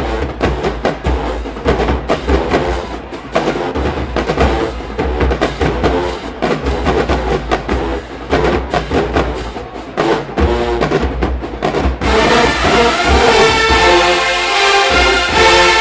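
HBCU marching band drumline playing a fast cadence of crisp hits over bass drums. About twelve seconds in, the full horn section comes in louder with a sustained, held tune.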